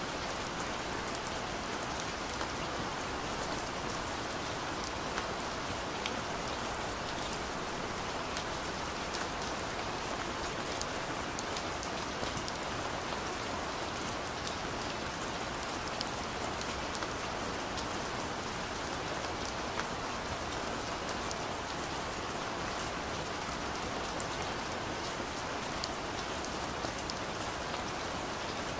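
Steady rain: an even hiss sprinkled with many small ticks of single drops landing close by.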